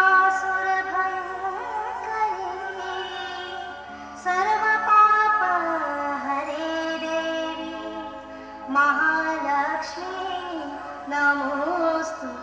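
Dance music with a female voice singing a melody. Her phrases come in four swells, each starting strongly and then fading.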